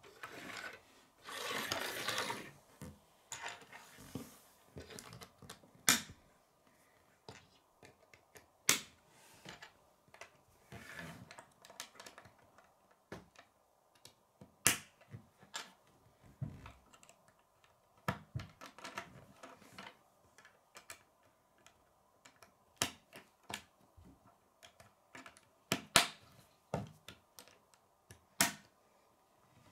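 Plastic K'nex rods and connectors clicking as they are snapped together and set down on a wooden table: scattered sharp clicks, with a short rustle about two seconds in.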